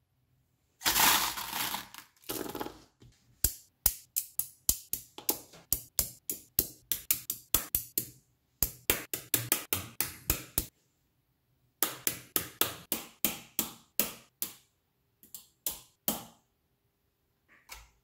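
Rod magnets and 10 mm steel balls snapping together one after another, giving sharp metallic clicks at about three or four a second in runs with short pauses. About a second in there is a rattle of metal about a second long.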